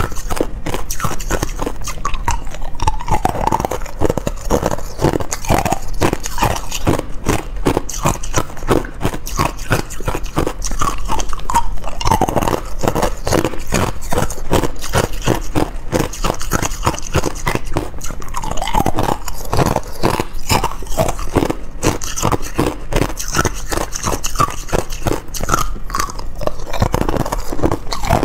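Hard clear ice cubes bitten and chewed, a dense run of sharp cracks and crunches in quick succession.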